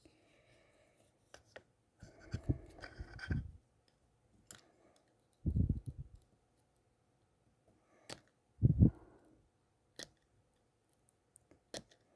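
Small metal tools clicking against an eyeglass frame while a screw-on nose pad is worked on, as scattered sharp clicks with a few dull handling bumps in between.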